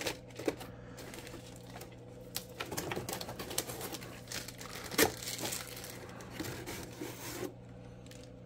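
Hands handling a cardboard box and plastic packaging: rustling, crinkling and scattered small clicks and taps, with one sharper knock about five seconds in, over a faint steady hum.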